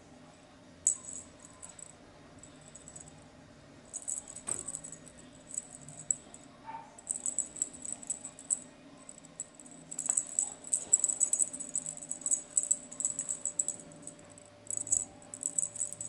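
Small jingle bell on a cat's wand toy jingling in quick, irregular shakes as a cat bats at it, sparse at first and busier in the second half. A single knock about four and a half seconds in.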